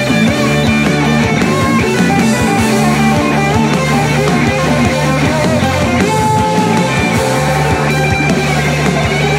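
Live rock band playing: electric guitar lines over a steady beat on a drum kit, with sustained low notes underneath.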